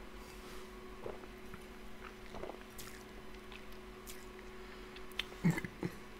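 Faint mouth sounds of someone tasting a mouthful of soft drink: small lip smacks and swallowing, with a few louder short sounds about five and a half seconds in.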